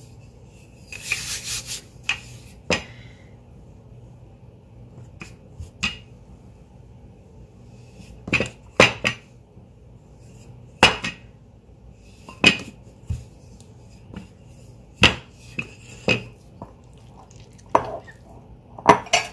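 A wooden rolling pin rolling out bread dough on a quartz countertop, making about ten sharp, irregular knocks on the hard stone. Near the end a metal spoon clinks in a glass bowl of filling.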